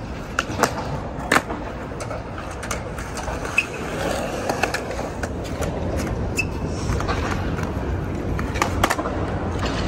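Skateboard wheels rolling on concrete with a steady rumble, the rider pushing along, with several sharp clacks of boards striking the ground, the loudest about a second in.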